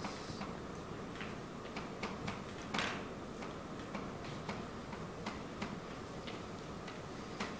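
Chalk tapping and scraping on a blackboard as equations are written: irregular sharp taps, with one longer, louder scrape about three seconds in, over a steady low room hum.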